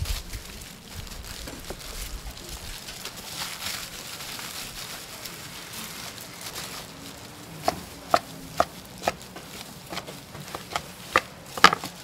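Nude gimbap being rolled and shaped by gloved hands on a plastic cutting board: faint rustling at first, then about eight sharp taps on the board, roughly two a second, over the last four seconds.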